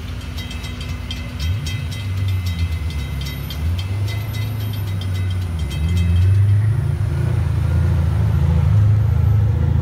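Railroad grade-crossing bell ringing in a steady, even beat as the gates rise after the train has cleared; it stops about five seconds in. Beneath it, a low rumble of road vehicles builds and grows louder about six seconds in as traffic starts over the crossing.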